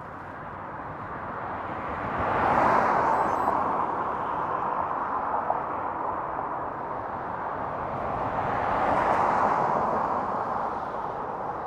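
Traffic passing on the road while riding: a rushing noise that swells and fades twice, around two seconds in and again near nine seconds, over steady road and air noise.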